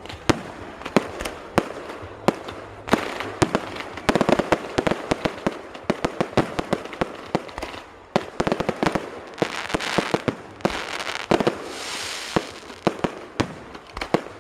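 Fireworks going off: many sharp bangs and crackles of bursting shells, some in quick runs, with a hissing rush about twelve seconds in.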